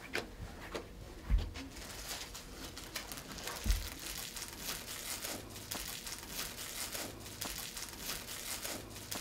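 Crinkling and crackling of a plastic snack-cake wrapper being handled and opened, a dense run of small crackles. Two dull thumps sound about a second and a half in and again near four seconds.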